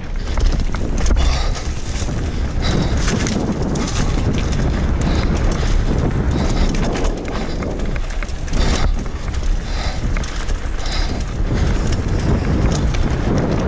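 Mountain bike ridden fast down a dirt and rock singletrack: tyres rolling and crunching over the ground, with repeated knocks and rattles from the bike over bumps, and wind buffeting the microphone.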